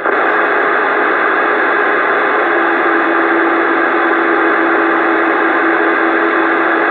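Galaxy DX929 radio's speaker hissing loudly and steadily with static from an incoming carrier, with no voice on it. A steady low tone joins the hiss about two and a half seconds in.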